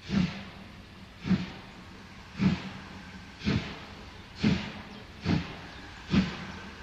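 Steam locomotive exhaust chuffing: a puff of steam about once a second, each with a hiss and a low thud, the beat quickening slightly towards the end.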